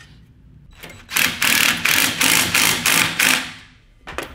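Ratchet wrench worked quickly back and forth on a bolt, a loud rapid clicking rattle of about six strokes a second that lasts about two and a half seconds and then fades.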